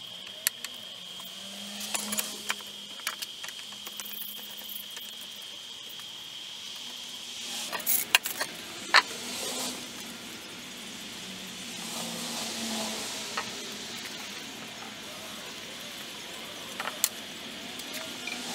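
Handling noises of workshop parts: scattered clicks and knocks of metal and wood, with a louder cluster of knocks about eight to nine seconds in. A faint steady high whine runs underneath until about seven seconds in.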